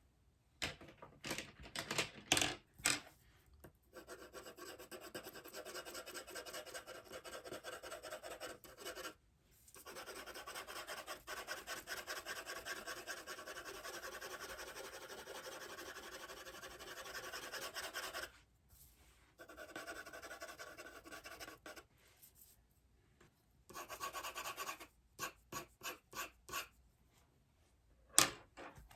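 Drawing strokes scratching on sketchpad paper as a bird sketch is reworked. Long runs of quick back-and-forth shading strokes, broken by short pauses, with a single sharp tap near the end.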